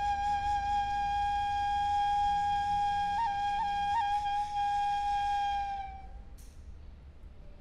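A Maya flute holding one long steady note, with three quick upward flicks in pitch about three to four seconds in; the note fades out about six seconds in.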